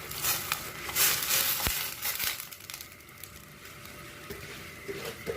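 Soaked jeerakasala rice being tipped into a pot of boiling spiced water, with a noisy burst of pouring for about a second, about a second in, then a quieter, steady hiss from the pot.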